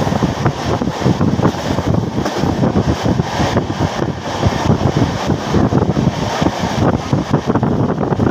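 Running noise of a passenger train at speed, heard from inside a carriage at the window: a steady, dense rumble and rattle, with wind noise on the microphone.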